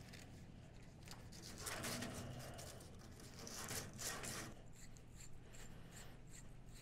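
Scrubbing the end of a copper tube with an abrasive, cleaning the copper before soldering: a scratchy rubbing in two louder spells, about a second and a half in and about four seconds in, with lighter strokes after.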